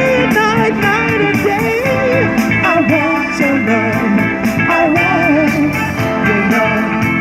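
Blues-rock music with guitar, a melody line bending and wavering in pitch over it.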